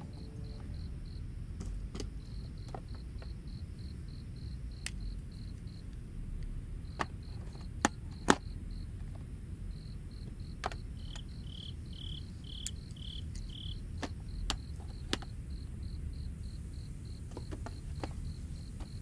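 Crickets chirping in a steady pulsing rhythm, about four chirps a second, with a second, lower cricket chirping about twice a second for a few seconds past the middle. Scattered sharp clicks of plastic building-block pieces being handled, with two louder ones about eight seconds in.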